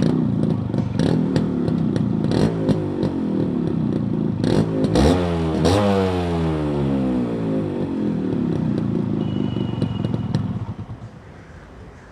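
Yamaha RX-series two-stroke single-cylinder motorcycle exhaust being revved. About five seconds in the pitch rises sharply, then falls away over the next few seconds, with sharp crackles through it. The sound stops shortly before the end.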